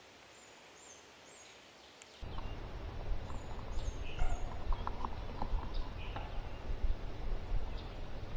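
Small birds chirping high and thin in woodland. About two seconds in, the sound switches to a louder track with a steady low rumble on the microphone, over which the chirps go on along with scattered short, sharp clicks and clucks.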